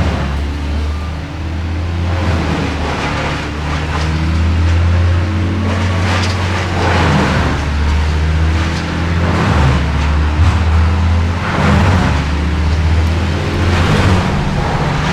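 A large engine running steadily at a low pitch, with several louder rushing surges over it.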